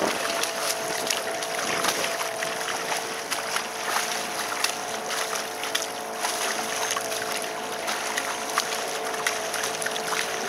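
Dghajsa water taxi under way: its motor runs with a steady hum, over the wash and splash of water along the hull and wind on the microphone.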